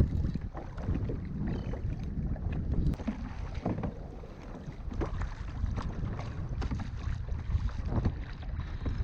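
Wind buffeting the microphone in a heavy, uneven low rumble, with frequent short splashes and slaps of seawater against a kayak.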